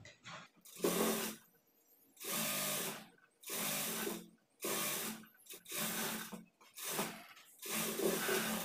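Sewing machine running in about seven short bursts of roughly a second each, with brief pauses between them, as it top-stitches a folded edge of fabric.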